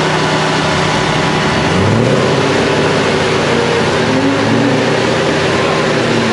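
Mercedes CLK63 AMG's 6.2-litre V8 running on a chassis dynamometer, steady at first, then its revs climb about two seconds in.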